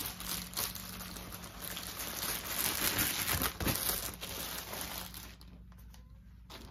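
Plastic bubble mailer being handled and opened, crinkling and rustling with a crackle. The rustle dies down a little past five seconds in.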